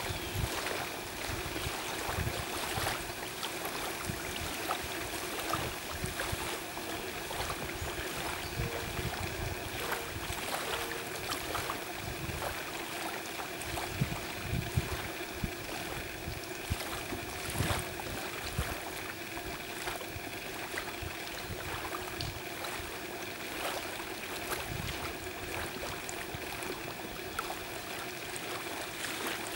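Steady outdoor background noise with a faint, steady hum and scattered small clicks.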